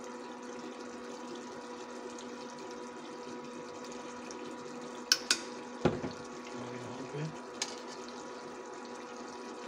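Keema simmering in a pot with a steady hiss, over a steady hum. A few sharp clicks come about five to six seconds in, and another near the end.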